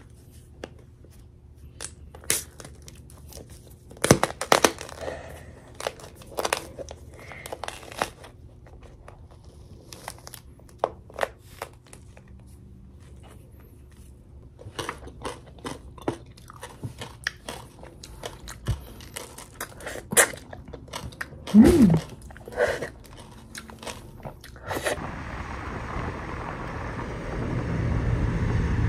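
Irregular crisp clicks, knocks and crunches, some louder than others, over a faint low hum. About four seconds before the end a steady low rumbling noise takes over.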